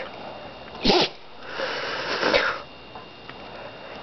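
Sleeping dog snoring: a short loud snort about a second in, then a longer, softer breath.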